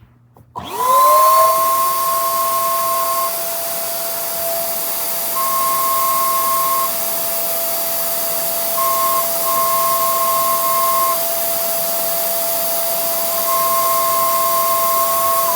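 3D-printed mini air horn blowing continuously: a steady horn tone that rises quickly to pitch as it starts about half a second in, over loud rushing air hiss. A second, higher tone cuts in and out several times.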